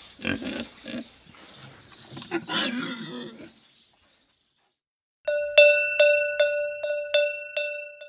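Pig grunting and squealing for the first few seconds. After a short pause, a cowbell is rung about seven times in quick succession, a ringing clank two or three times a second: the signal to turn the page.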